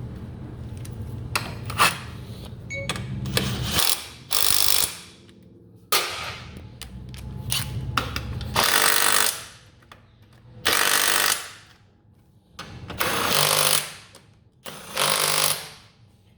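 A power driver runs the airbox frame bolts back in, whirring in six short bursts of about a second each with pauses between them.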